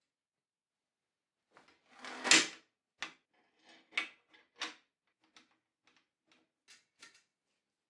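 Metal clinks and knocks as a steel bottom bracket tool is pushed into a bicycle frame's bottom bracket shell and its parts are fitted together. One loud clunk about two seconds in, then a run of lighter metallic clicks.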